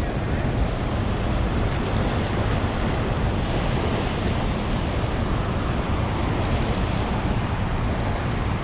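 Steady rushing roar of heavy water released through a dam, pouring into the tailwater.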